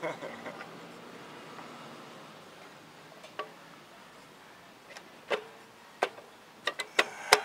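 Scattered sharp metallic clicks and clinks of tools and brake parts being handled, a handful of single taps getting more frequent toward the end.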